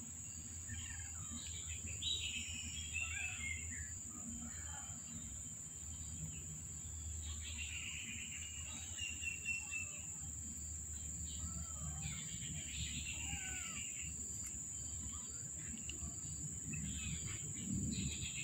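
Outdoor ambience: a steady high-pitched insect drone with scattered short bird chirps.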